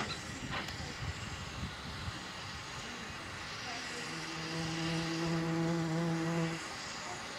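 LMS Fowler 3F 0-6-0T steam tank engine moving slowly, with a couple of knocks at first and a steady hiss of steam that grows. About four seconds in, a low, steady whistle sounds for about two and a half seconds and then cuts off.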